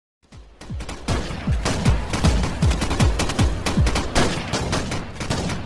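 Canned gunfire sound effect: a rapid, sustained burst of shots with repeated low booms, starting about a quarter second in after a brief silence.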